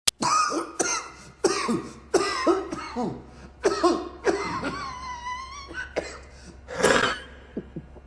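A man's coughing fit: a rapid string of harsh coughs, a drawn-out pitched wheeze-like sound partway through, then one more loud cough near the end.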